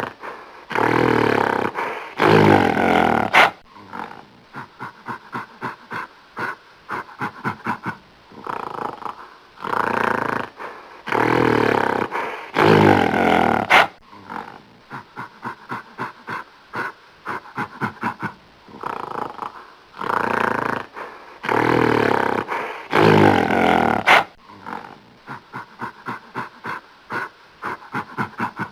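Gorilla snarling: loud growling snarls of a second or two, each followed by a run of short, quick grunts, about three or four a second. The same sequence repeats about every ten seconds.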